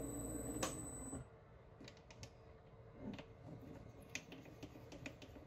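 Faint, scattered clicks over near silence, after a low hum that cuts off about a second in.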